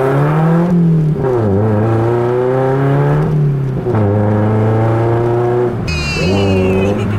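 Lotus Elise engine heard from inside the cabin, pulling away and revving up through the gears: its pitch climbs, drops back, and climbs again several times as the driver shifts, with a short break near the end.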